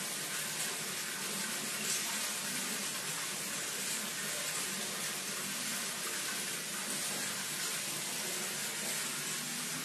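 Water running hard from a tap into a bathtub, a steady even gush.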